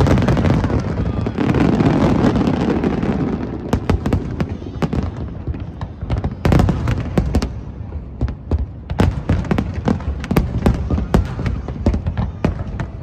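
Aerial fireworks shells bursting: a dense run of overlapping bangs and crackling for the first few seconds, then single bangs going off one after another.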